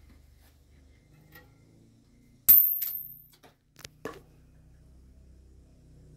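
A sharp clank with a brief high ring about two and a half seconds in, then a few lighter clicks and knocks, from the metal bucket and fittings of a well.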